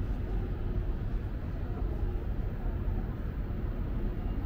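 Steady low rumble of a Montreal metro Azur train running on its rubber tyres, with a faint steady hum above it.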